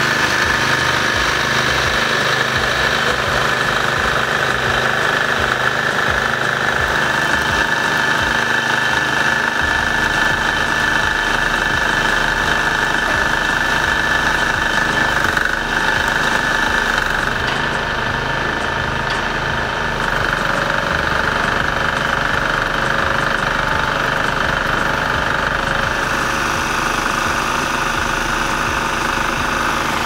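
Small engine of a portable petrol generator running steadily, with a slight change in its low note about ten seconds in.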